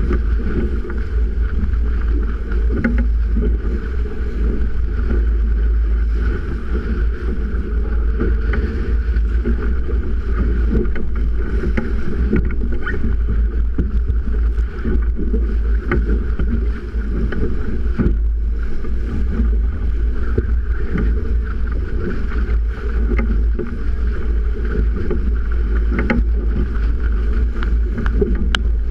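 Steady, loud wind rumble on the microphone, with water rushing and slapping along the hull of a Melges 24 sailboat driving upwind in 30-plus-knot winds. There are occasional brief knocks.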